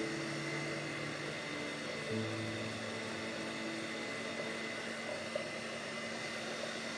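Electric hand mixer running steadily, beating cake batter; its pitch drops a little about two seconds in.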